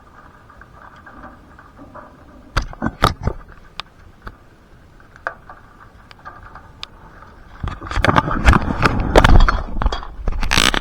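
Hard storm precipitation striking a surface close to the microphone: scattered sharp hits at first, then a dense, loud clatter over the last three seconds.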